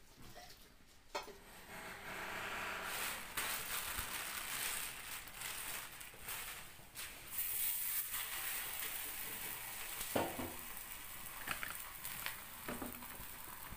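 Thin plastic sheet crinkling and rustling as it is peeled off a pressed holige and handled, with a few sharp crackles.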